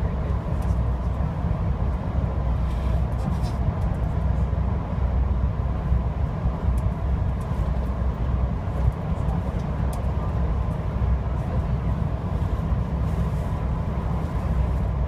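Steady low rumble and rolling noise of a VIA Rail LRC passenger car in motion, heard from inside the coach.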